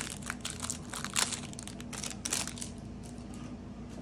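Packaging crinkling and crackling as the starter deck's cards are unwrapped, in quick rustles that die down to faint handling about two and a half seconds in.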